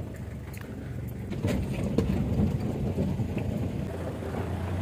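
A vehicle's engine running steadily as it drives over a rough gravel track, with a few knocks and rattles from the bumps, the sharpest about one and a half and two seconds in.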